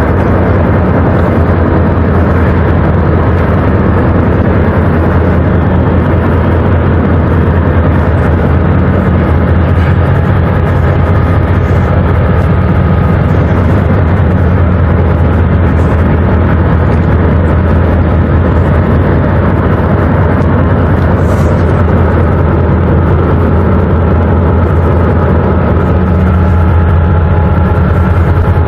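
Car ferry's engines running with a loud, steady low drone as the ship lets go all its mooring lines for departure.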